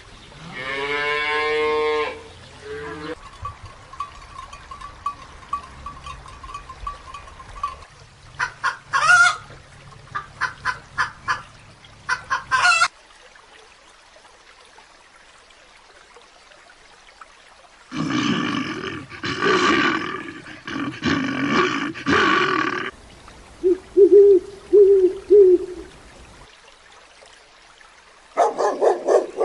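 A series of different animal calls, one after another with pauses between them.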